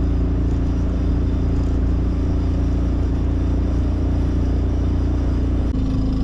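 Steady drone of a vehicle's engine under way, with a heavy low rumble; the engine note shifts slightly near the end.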